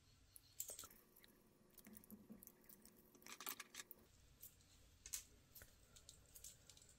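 Near silence with a few faint, scattered clicks and taps of small objects being handled, about a second in, in the middle and around five seconds in.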